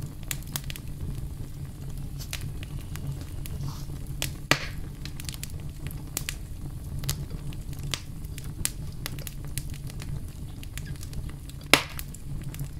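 Light kitchen handling noises as fish and squid are seasoned: scattered soft clicks and taps, with two sharper clicks about four and a half seconds and twelve seconds in, over a steady low hum.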